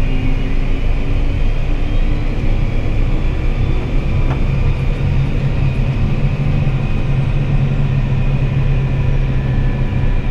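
John Deere S770 combine's engine running steadily while the machine drives to the field, heard from the cab as a loud low drone with a steady high whine over it.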